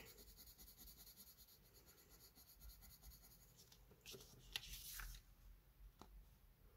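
Faint scratching of a Faber-Castell coloured pencil scribbling a small swatch on paper, followed about four seconds in by a short rustle of the paper sheet being handled.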